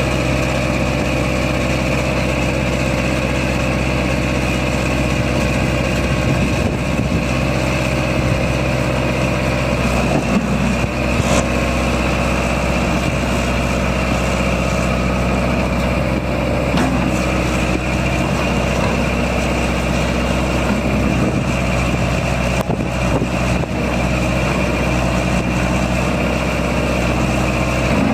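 New Holland LB75B loader backhoe's 85 hp New Holland diesel engine idling steadily.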